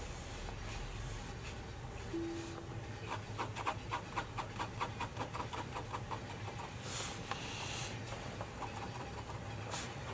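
Fine-tipped pen scratching on sketchbook paper: a rapid run of short hatching strokes, about six a second, then two longer, louder scratches near the end, over a steady low rumble.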